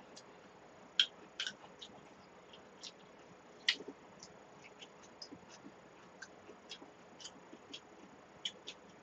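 Faint clicking and clinking of metal chopsticks and spoons against stainless steel bowls during eating, with a few sharper clinks about a second in and again near four seconds.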